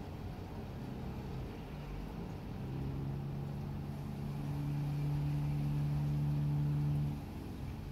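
A motor's steady low hum that grows louder about three seconds in and cuts off abruptly about seven seconds in.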